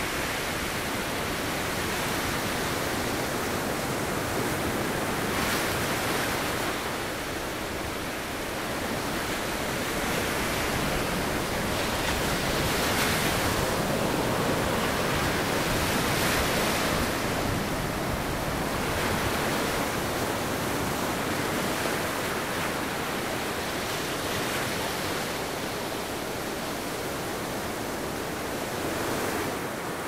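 Pacific Ocean surf breaking and washing ashore: a steady rushing wash that swells every few seconds as each wave comes in.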